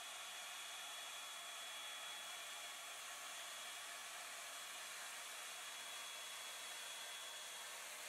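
Hot Tools Pro One Step Blowout hot-air brush running, a faint steady rush of air with a thin high whine.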